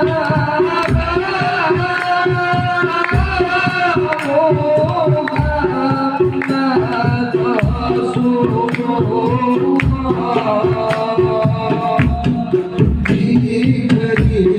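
Sholawat singing, a devotional Islamic song in praise of the Prophet, with a melodic voice line over steady hand-drum percussion in a driving rhythm.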